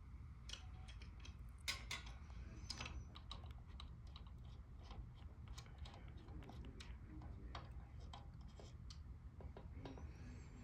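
Faint, irregular clicks and taps of small hardware, screws and a blade iron being handled and fitted as a blade is fastened to a ceiling fan, over a low steady hum.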